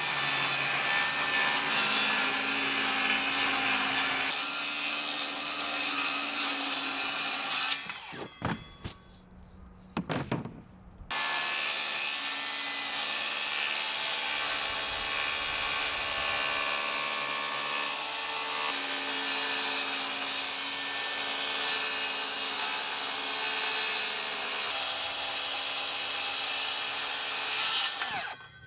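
Cordless power saw cutting through plywood sheet in two long, steady cuts. The saw stops for about three seconds a third of the way in, with a few clicks while it is repositioned, then runs again until just before the end.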